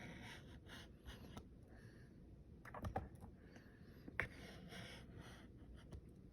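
Faint scratchy strokes of a drawing tool on a surface, in short irregular stretches, with two sharper taps about three and four seconds in.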